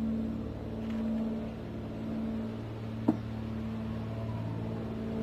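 A steady low machine hum, with a single sharp click about three seconds in.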